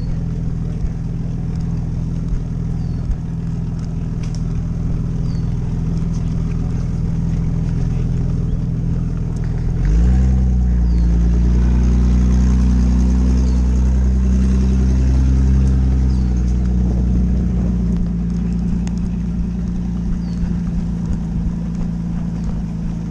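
Gun truck's engine running steadily under way, revving up about ten seconds in, holding at higher speed for several seconds, then easing back.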